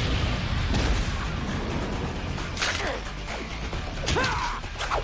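Cartoon action sound effects, crashes, whooshes and mechanical clanks, over background music, with a few sliding zap-like tones near the end.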